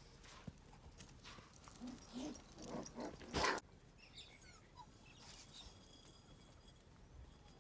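Cavoodle puppies playing, with a few short whimpers and yips. About three and a half seconds in, a loud brief rustling bump as a puppy scrambles up onto the person filming.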